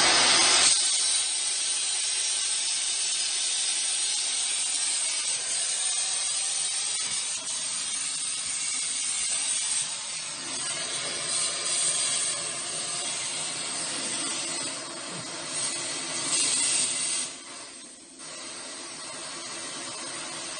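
Gas cutting torch flame hissing steadily while heating a stuck snowblower fan hub, to loosen it from the gearbox shaft. The hiss drops off a few seconds before the end.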